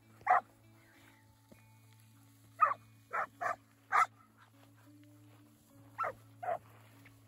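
Young hanging tree cowdog pup barking at cattle: seven short sharp barks, one at the start, a quick run of four a few seconds in, and two more near the end.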